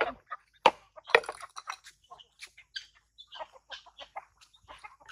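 Chickens clucking in short, scattered calls, with two sharp knocks about a second in.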